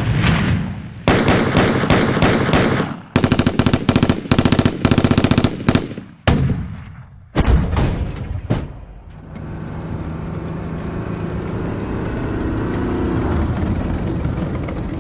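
Military sound effects in sequence: a blast dying away, then long bursts of rapid machine-gun fire, then three single heavy shots. From about nine seconds in, a heavy vehicle engine runs steadily.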